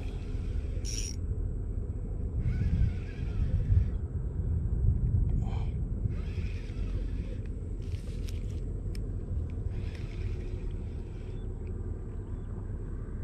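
Low, fluctuating wind rumble on the microphone, with short bursts of rustling and handling noise as a fishing rod and spinning reel are gripped and adjusted.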